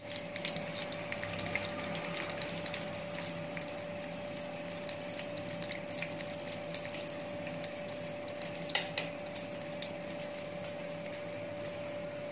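Hot oil sizzling and crackling steadily as breadcrumb-coated potato and chicken balls shallow-fry in a pan. Light clicks of metal tongs come through now and then, one sharper than the rest about nine seconds in, over a steady faint hum.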